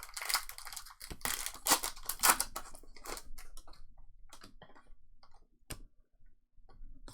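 Trading cards and foil packs being handled: quick clicks and papery rustles, dense for the first three seconds or so, then sparser single clicks.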